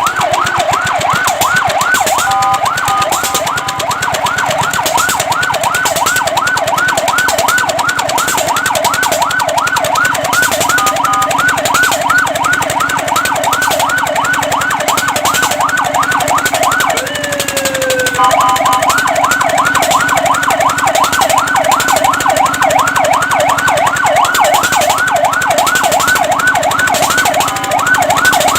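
Fire truck siren on a fast yelp, rising and falling several times a second. It is broken a few times by short steady two-note tones, and once, about two-thirds of the way in, by a single long falling sweep.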